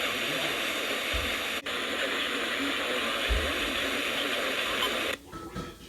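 Steady radio static hiss from a weather-alert receiver, with a brief dropout about a second and a half in. The hiss cuts out about five seconds in. The signal has broken up, drowning the warning's spoken text.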